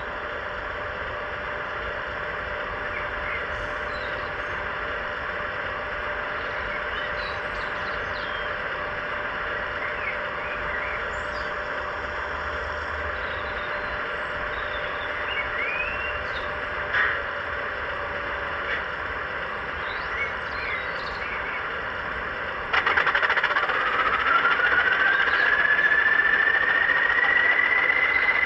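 Model diesel locomotive's engine sound running with a steady hum while small birds chirp. About 23 s in it turns abruptly louder, and a whine rises steadily in pitch as it revs up.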